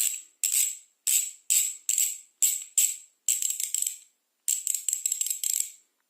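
Primo Remix BMX cassette hub's freewheel ratchet clicking loudly in a string of short bursts, the last two longer. The pawls have been modified with extra spring tabs to make the hub louder.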